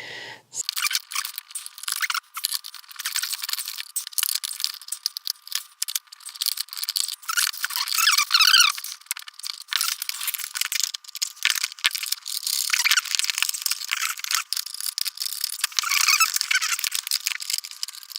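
Dense clicking and rattling of a cheap plastic LED projector being taken apart by hand, with a few squeaky patches. The sound is thin and tinny, with no low end.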